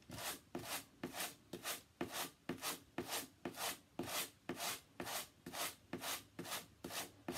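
A brush rasping in quick, even strokes, about two a second, as it combs unravelled paracord out into loose fluffy fibres.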